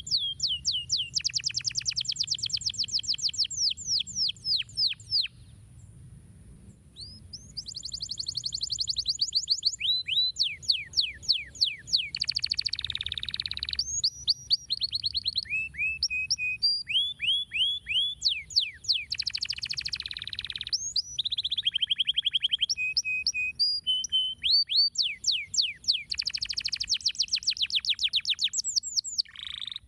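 Domestic canary singing: fast rolling trills of quick down-sweeping notes and repeated whistled notes, in phrases with a short pause about six seconds in.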